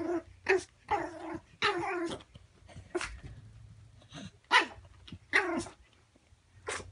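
Small puppy giving a string of short barks mixed with growls, irregularly spaced, as it challenges its own reflection in a mirror.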